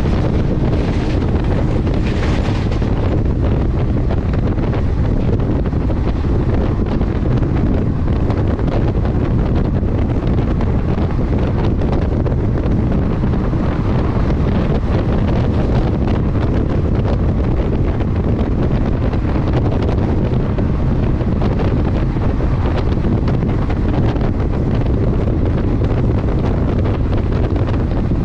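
Wind buffeting the microphone, with the low, steady rumble of a moving train underneath.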